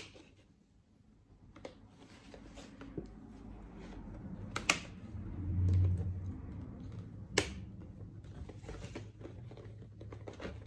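Scissors snipping open a package and the packaging being handled: scattered sharp clicks and light rustling, with a dull low thump a little past the middle.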